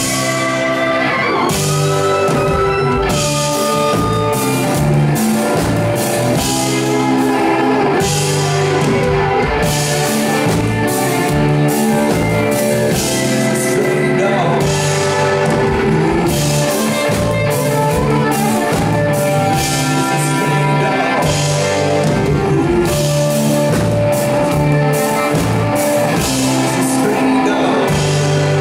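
Live rock band playing: electric guitars over a drum kit, bass and keyboards.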